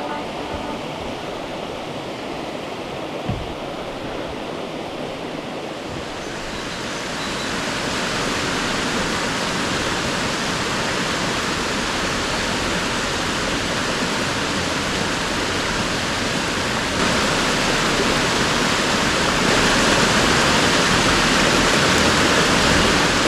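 Waterfall rushing steadily, a dense hiss of falling water that grows louder in two steps, first about a third of the way in and again later on.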